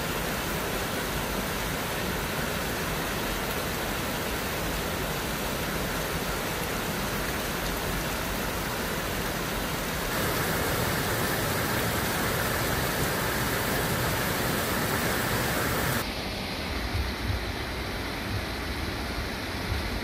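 Steady rush of a mountain stream flowing over rocks, an even hiss with no break; its tone changes abruptly about halfway through and again near the end.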